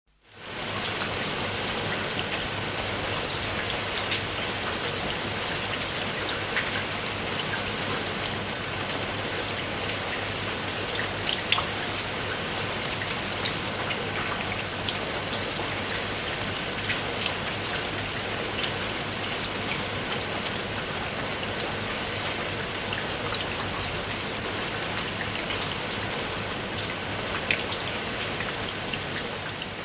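Heavy rain falling steadily, a dense hiss with many individual drops ticking sharply through it. It fades in over the first moment.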